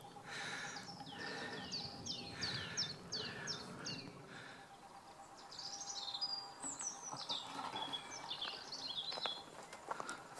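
Songbirds singing: a series of about eight quick, high notes that each sweep downward, then a more varied warbling phrase.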